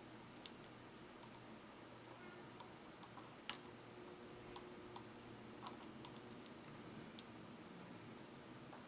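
Faint, irregular small clicks and taps of metal tweezers and a soldering-iron tip against a quadcopter's circuit board and plastic frame while motor wires are soldered on. A faint steady hum runs underneath.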